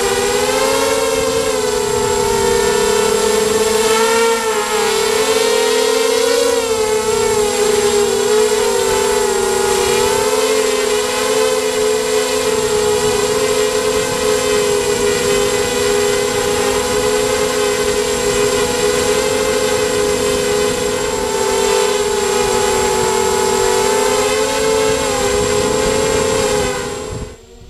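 Emax Nighthawk 250 racing quadcopter's brushless motors and propellers whining steadily, as picked up by its onboard GoPro. The pitch wavers up and down with the throttle for the first several seconds, then holds steadier, and the whine cuts off near the end.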